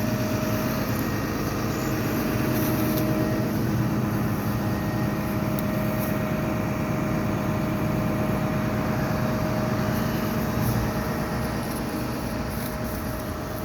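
Engine running steadily at idle: a constant hum with a faint steady whine.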